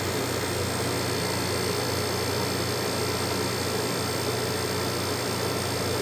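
Window-type air conditioner compressor running with a steady, noisy hum. It is running again after its thermal overload switch was adjusted and its sensor cleaned.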